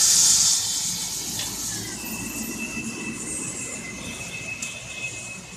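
Electric drill boring into the edge of a PVC door frame: a loud grinding hiss for the first half-second, then the drill runs on with a steady high-pitched whine until near the end.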